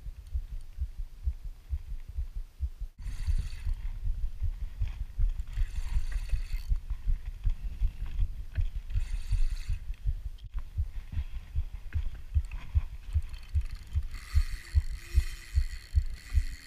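Spinning reel being cranked against a hooked fish, over a rapid rhythm of low thumps from handling the rod and reel. Several short stretches of the drag buzzing as the fish pulls line, the longest near the end.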